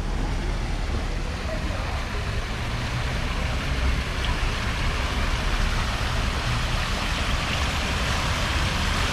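Steady outdoor street ambience: a low rumble under an even hiss that grows slightly stronger toward the end.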